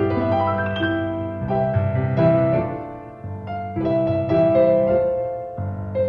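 Piano playing a gentle melody in chords over held bass notes, softening briefly about halfway through.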